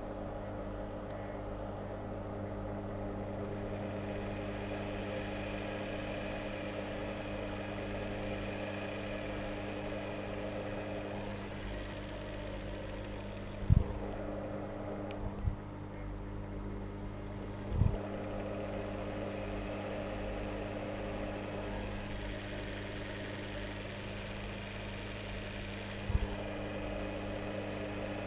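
Old washing-machine motor, a brushed motor with a tachometer, running steadily with a humming tone and a hiss. A few short knocks come about halfway through and once near the end.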